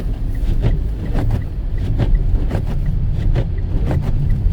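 2018 Mitsubishi Outlander Sport driving on a snow-covered road, heard from inside the cabin: a steady low rumble of engine and tyres, with scattered sharp clicks and knocks at irregular intervals.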